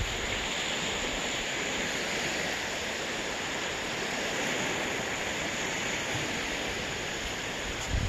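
Small waves washing onto a sandy beach: a steady, even hiss of surf.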